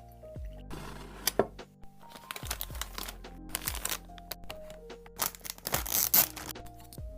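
Background music with a deep, repeating bass beat, over which packaging is crinkled and torn open in several rustling bursts, the loudest about six seconds in.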